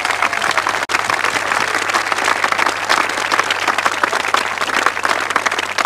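Crowd of spectators applauding steadily, a dense mass of hand claps, with a brief dropout in the sound about a second in.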